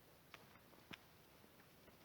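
Near silence, with two faint short clicks, about a third of a second and about a second in.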